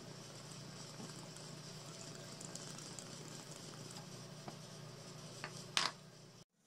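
A steady low hum and hiss, with a few faint clicks of small objects being handled on a wooden table and one sharper click near the end. The sound then cuts out abruptly.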